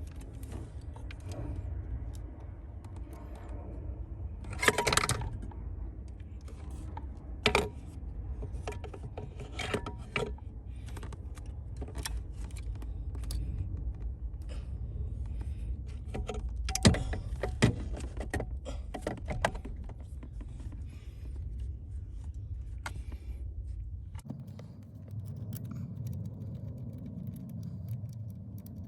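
Small metal parts and tools being handled, with scattered clicks, clinks and light rattles and a few sharper knocks, over a low steady rumble.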